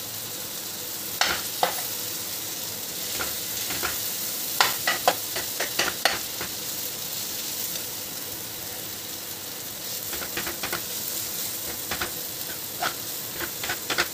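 Vegetable masala sizzling in a nonstick kadai while a steel ladle stirs mashed boiled potatoes into it, the ladle clinking and scraping against the pan in scattered clusters of sharp clicks over a steady frying hiss.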